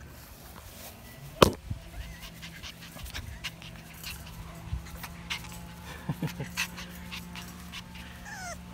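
French bulldog puppy panting and whimpering, with a few short whimpers about six seconds in and a falling whine near the end. A single sharp knock comes about a second and a half in, among small clicks.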